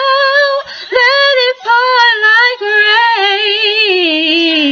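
A woman singing a gospel song solo, in several held phrases with a wide vibrato and short breaths between them. The last phrase slides down in pitch near the end.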